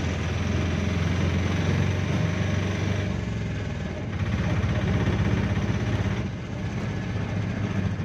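Auto rickshaw engine running steadily as it drives along a road, heard from inside the open cabin behind the driver, with road and wind noise. The engine sound dips briefly about four seconds in and again just after six seconds.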